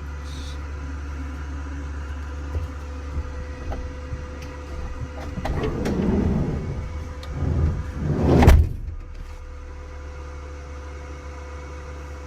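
Chinese diesel air heater running on its high setting, a steady low hum. Handling noise swells about six seconds in, and a loud thump comes about eight and a half seconds in.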